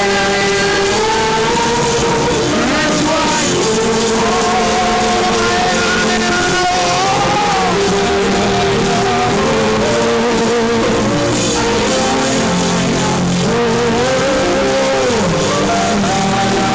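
Loud, continuous church worship music from a live band, with held, wavering sung melody lines.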